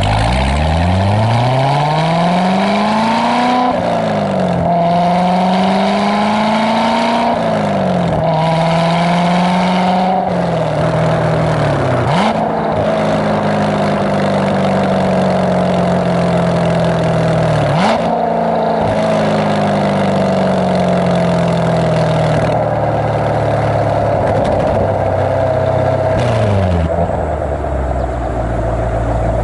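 C7 Corvette Stingray Z51's 6.2-litre LT1 V8 exhaust, fitted with an AWE off-road X-pipe that deletes the secondary catalytic converters, under medium acceleration. The engine pitch climbs and drops back at each of several upshifts, then falls away near the end as the car eases off.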